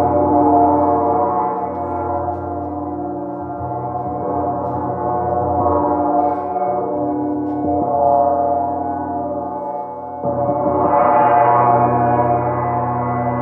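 A gong played gently, its many overlapping tones ringing on and swelling and fading in long waves. A fresh, stronger swell comes in about ten seconds in.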